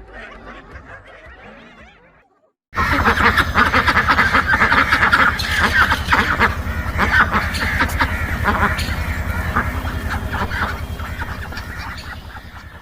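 A flock of waterfowl calling all at once, a loud continuous din that cuts in suddenly about three seconds in after a brief silence.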